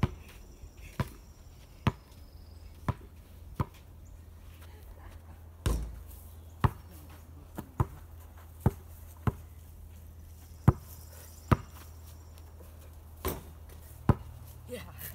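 A basketball bouncing on packed sandy ground: single sharp bounces about once a second at an uneven pace, with one heavier thud about six seconds in.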